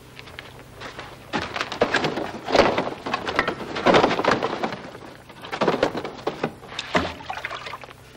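Irregular thuds, knocks and rustling in uneven clusters, loudest about a third and halfway in.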